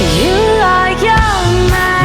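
Background music: a pop song with a sung melody over bass and guitar.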